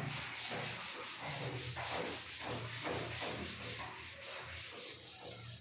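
Cloth duster rubbing chalk off a blackboard in quick, repeated wiping strokes, a soft scratchy swish.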